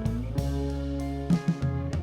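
Background music: plucked guitar over sustained bass notes, with a steady beat.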